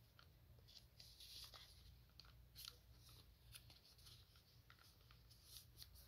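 Faint, irregular rustling and crisp little crackles of origami paper being folded over and creased flat by hand.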